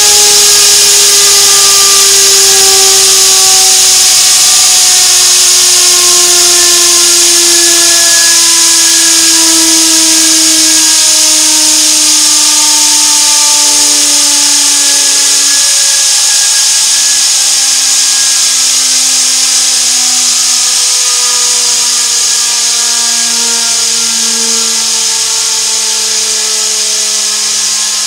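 3D-printed Tesla turbine's rotor of aluminium disks whining at high speed, its pitch falling slowly and steadily to about half as the rotor winds down. A loud steady hiss runs under it, and the whole sound slowly fades.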